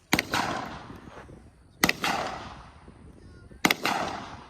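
Three gunshots about two seconds apart, each followed by a trailing echo.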